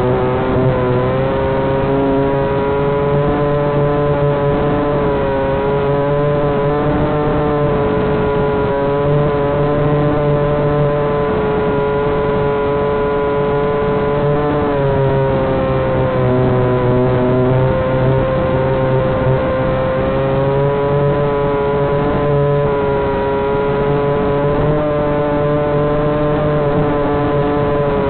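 Walkera Hifa drone's electric motors and propellers, heard from its on-board camera, running in a steady whine. The pitch wavers slightly up and down as the aircraft holds position and turns, over a lower hum.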